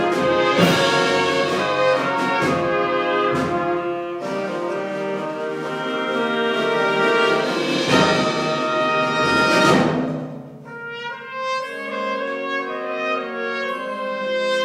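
School concert band playing a loud full-ensemble passage led by brass, with several sharp accents, then dropping to a quieter, thinner passage about ten seconds in.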